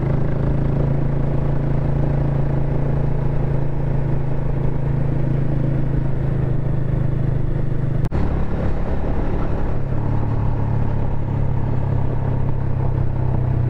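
Single-cylinder motorcycle engine running steadily under way, heard from the rider's seat with road and wind noise, with a momentary break about eight seconds in.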